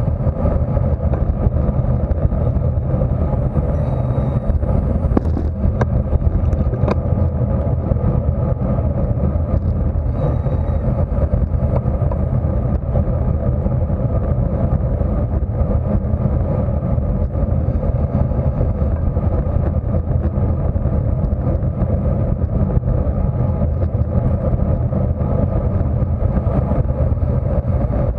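Loud, steady wind rush and low rumble on a bike-mounted action camera's microphone while a road bike rides at race speed, with tyre and road noise underneath.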